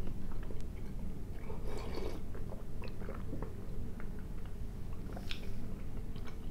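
A person chewing a mouthful of soft sweet close to the microphone, with small wet mouth clicks and smacks. The smacks come thicker about two seconds in and again briefly near five seconds, over a steady low room hum.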